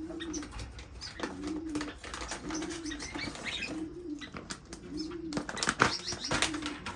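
Cage birds: one bird gives a low cooing call over and over, six times at about one per second, among short high chirps and clicks from smaller birds.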